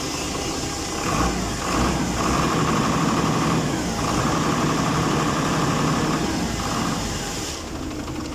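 Isuzu 6BG1 inline-six diesel engine in a forklift running just after starting. It is brought up in speed from about a second in and drops back to idle near the end. It now keeps running with the fuel leak at the fuel-water separator tightened.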